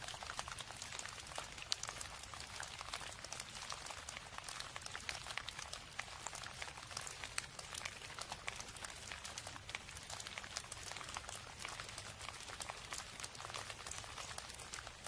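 Steady rain, with many single drops heard as sharp ticks over a continuous hiss.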